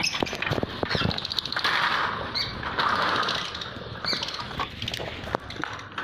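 Lovebirds in an aviary flapping their wings, with a few short high chirps and a scatter of clicks and rustles.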